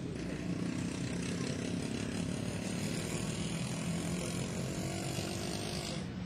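A steady low mechanical drone with a constant pitch.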